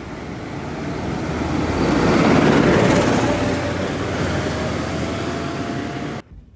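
Heavy vehicle engine running loud, swelling up over about two seconds and then easing off, with a faint steady whine that creeps slightly upward; the sound cuts off suddenly near the end.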